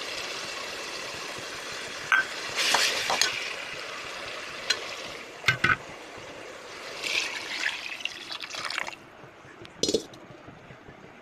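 Water running and splashing with sharp clinks of utensils against a vessel; the water stops about nine seconds in, followed by one more clink.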